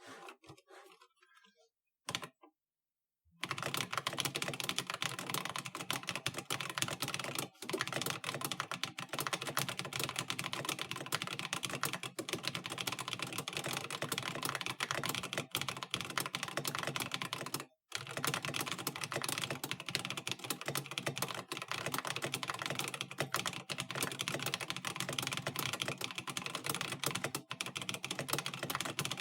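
Continuous fast typing on a GK61 mechanical keyboard with pre-lubed Holy Panda tactile switches in an aluminum case. The typing starts about three seconds in and pauses for a moment twice.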